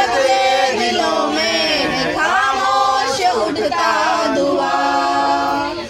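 Men singing a song together without instruments, in long held notes.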